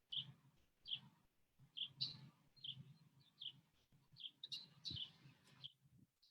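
A bird chirping faintly, one short high chirp roughly every second, with a brief pair of louder chirps about two-thirds of the way through.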